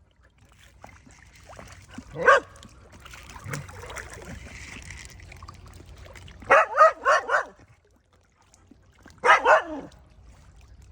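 Mixed-breed village dog barking: a single bark about two seconds in, a quick run of four barks past the middle, then two or three more near the end.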